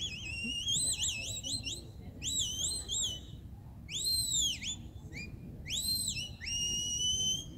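A sheepdog handler's whistle giving commands to a working border collie at the pen: a run of quick up-and-down warbled notes, then arched notes, the last drawn out into a long steady tone near the end.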